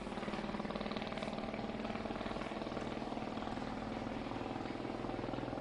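Vehicle engine running steadily, with an even low hum.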